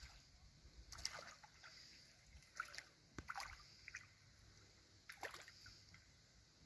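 Near silence: faint lapping of harbour water at a floating dock, with a few soft, short clicks and squeaks scattered through.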